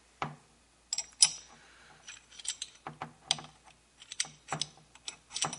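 Irregular metal clicks and clacks of a Hakim rifle's bolt being fitted back into its bolt carrier by hand, about a dozen of them, the loudest about a second in.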